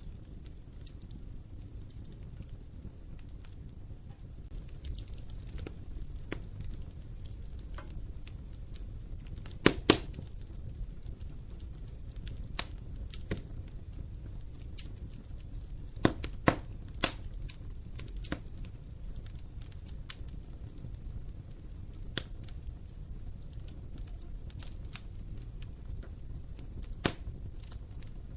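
Wood fire burning in an open fireplace: a steady low rumble of flame with scattered sharp crackles and pops, the loudest a quick pair about a third of the way in and a cluster a little past halfway.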